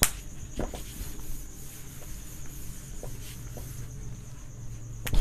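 Pause with quiet room noise: a steady high thin trill, a sharp click at the start and another near the end, and a few faint ticks in between.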